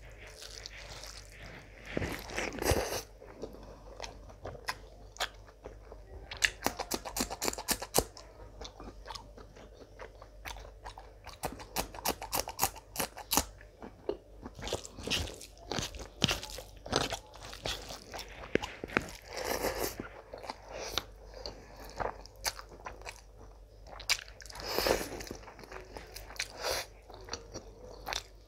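Close-miked chewing of a mouthful of mutton and spiced rice, with wet mouth noises and runs of sharp crunching clicks, thickest about seven seconds in and again about twelve seconds in.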